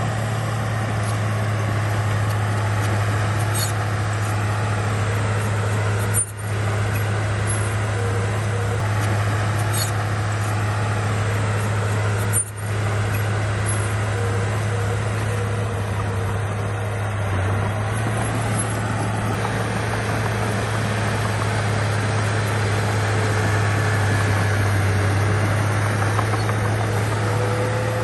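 Heavy diesel engine of a bulldozer running steadily under load, a constant low drone, with the sound cutting out for a split second twice.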